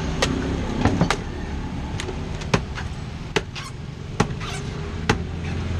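Machete chopping the husk off a young green coconut to open it for drinking: a dozen or so sharp, separate chops, roughly one or two a second. A steady low hum lies beneath.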